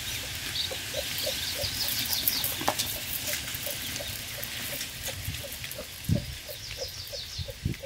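Chickens clucking in a steady run of short low calls, about three a second, with thin high chirps above them in the first few seconds. A few soft thumps near the end.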